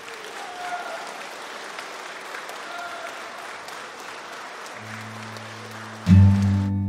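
Audience applauding at the end of a live song recording. Near the end a low note comes in, then a new song starts loudly about six seconds in.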